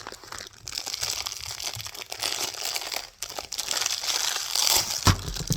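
Packaging being handled and torn open: crinkling and tearing, growing louder toward the end, with a sharp thump about five seconds in.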